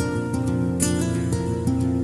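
Background music: a calm acoustic guitar piece with plucked notes.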